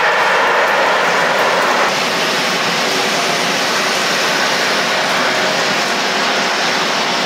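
Steady jet engine noise from an Airbus A330-243's Rolls-Royce Trent 700 turbofans, with a faint whine above it. The sound steps down slightly about two seconds in.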